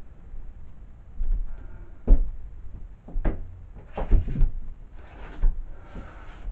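A handful of separate wooden knocks and bumps, about a second apart, with a short scrape just before the first, like a cupboard or drawer being opened and shut and objects being set down.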